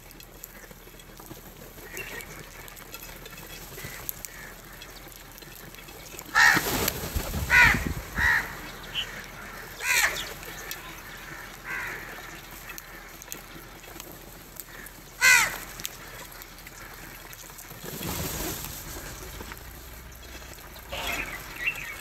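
House crows cawing: a quick run of harsh caws about six to ten seconds in and a single caw at about fifteen seconds, over a low steady background, with a brief rush of noise near the end.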